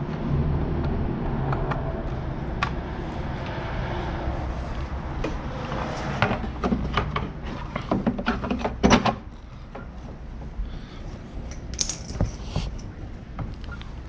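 Scattered light clicks and knocks of a bulb and its socket being handled and fitted into a car taillight assembly, with a low background rumble that drops about nine seconds in.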